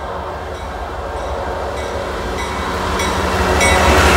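Canadian National freight train's diesel locomotives approaching and passing close by, the engine rumble growing steadily louder. Over it, a locomotive bell rings in even strokes.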